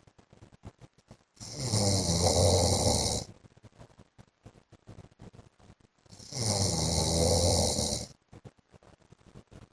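A man snoring in his sleep: two long snores about five seconds apart, each lasting nearly two seconds, with quiet gaps between breaths.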